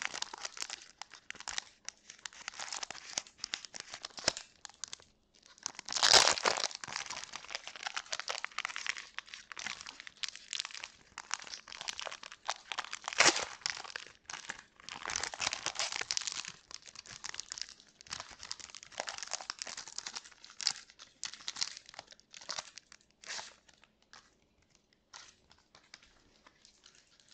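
Plastic wrapper of a small Pokémon Trick or Trade booster pack crinkling as it is handled and torn open, in irregular crackles with sharp, louder rips about six and thirteen seconds in. The crackling thins out and grows fainter near the end.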